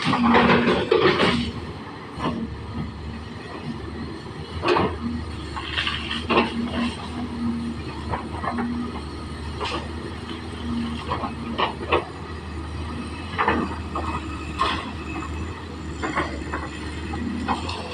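Excavator's diesel engine running with a steady low drone while it crosses a ditch, with repeated sharp clanks and knocks of its metal parts. A loud burst of noise comes in the first second or so.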